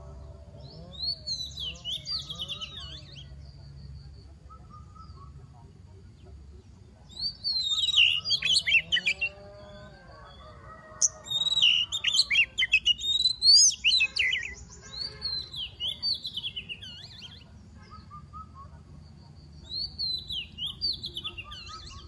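Oriental magpie-robin singing in five bursts of rapid, varied whistled phrases, each two to three seconds long with short pauses between.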